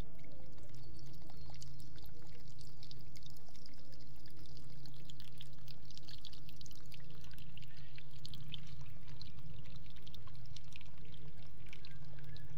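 Homemade mini water pump, a small DC motor driving an impeller, running and throwing a spray of water into a plastic tub: continuous splashing and pouring, with a steady low hum underneath.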